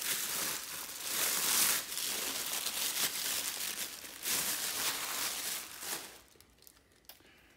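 Thin plastic bag crinkling and rustling as it is unwrapped and pulled off a statue base, dying down about six seconds in to a few faint rustles.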